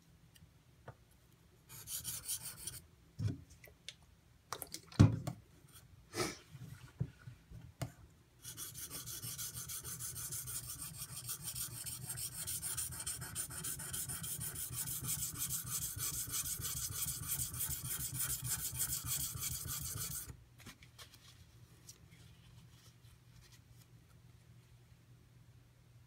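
Ontario Utilitac II tanto knife's AUS-8 steel blade scraping across a Shapton Pro whetstone during sharpening. A short scrape comes about two seconds in, then a few knocks as the knife and stone are handled, then about twelve seconds of steady scraping that stops abruptly.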